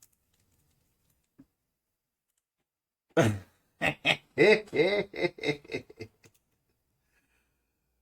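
Near silence, then about three seconds in a person's voice: a quick run of short vocal sounds lasting about three seconds.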